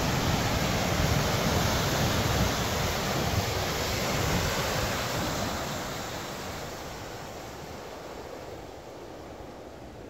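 A steady rushing noise with no clear tone, like wind or running water, fading away over the second half.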